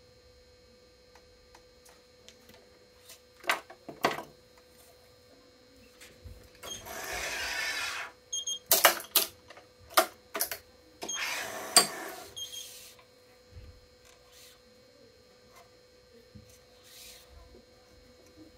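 Handling noise from a badminton racket on a Yonex ES5 Pro stringing machine: scattered sharp clicks and knocks from the clamps and frame, and two longer rasping strokes of about a second and a half each, around seven and twelve seconds in. A faint steady hum runs underneath.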